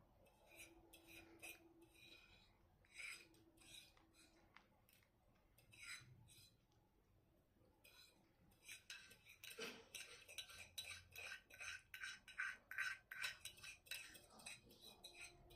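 Cutlery clinking and scraping on a plate during a meal: a few scattered clinks at first, then a busy run of quick clinks and scrapes through the second half.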